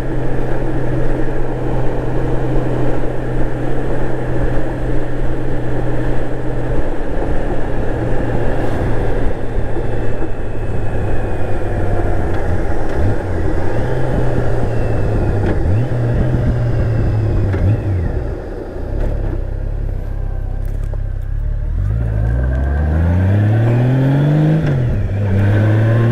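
Honda GL1800 Gold Wing's flat-six engine running at cruising speed, with wind and road noise. About three-quarters of the way through it eases off, then accelerates with a rising pitch, dropping once for an upshift and rising again.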